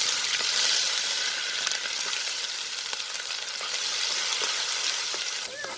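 Crushed garlic, ginger and shallots hitting hot coconut oil with mustard seeds and fenugreek in a clay pot, sizzling loudly all at once and then slowly easing off.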